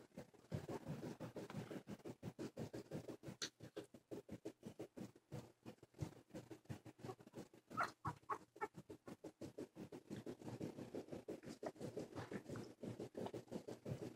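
Faint rapid scratching and rustling of two-and-a-half-week-old silky terrier puppies crawling on carpet. About eight seconds in come a few short, high puppy squeaks in quick succession.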